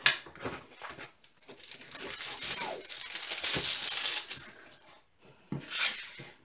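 Plastic film over a diamond painting canvas crinkling as hands smooth the canvas flat, then lift and turn it. There is a sustained rustle of about two seconds in the middle and a shorter one near the end.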